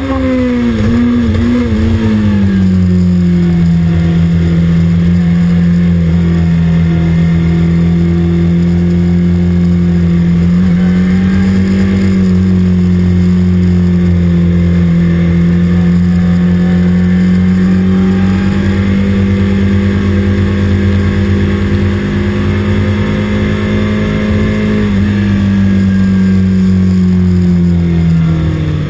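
Kawasaki ZX-6RR's 600 cc inline-four engine ridden slowly at low, steady revs. The engine note falls over the first couple of seconds as the bike slows and falls again near the end.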